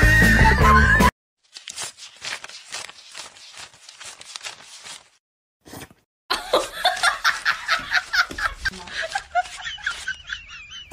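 Background music cuts off about a second in. Then a person laughs in short repeated bursts, faint at first and louder from about six seconds in.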